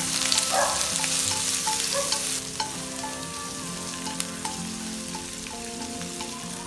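Lemongrass, ginger and shallots sizzling in hot oil in a stainless steel pot, stirred with wooden chopsticks that tick against the pot now and then. The sizzle is loudest for the first couple of seconds, then eases.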